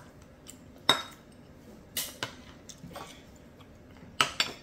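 Utensil clinking and tapping against bowls while eating: about five sharp separate clinks, the loudest about a second in and a pair near the end, the first with a short ring.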